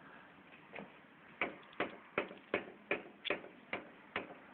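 Ford Focus 3 steering rack knocking as the left tie rod is jerked back and forth by hand: a clear, metallic knock about three times a second, starting just under a second in. It is a sign of play in the new steering rack, about 1,600 km after it was replaced.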